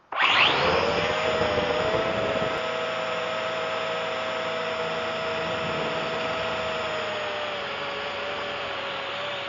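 Drone's electric motors and propellers spinning up with a brief rising whine, then running with a steady whirring hum as it climbs.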